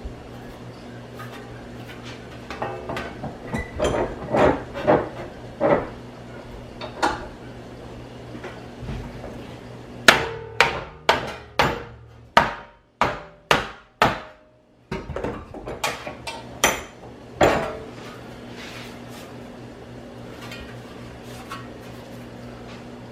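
Hammer blows on sheet metal clamped in a vise, bending it over. The blows come in uneven clusters, with a quick run of about eight sharp strikes in the middle, over a steady low hum.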